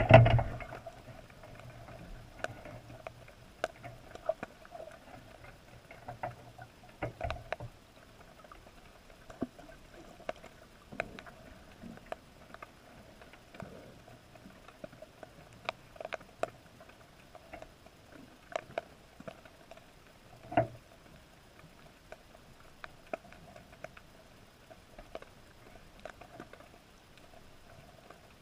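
Faint underwater clicks and ticks at irregular intervals, a single sharper one about twenty seconds in, over a low steady hum, picked up by a GoPro in its waterproof housing.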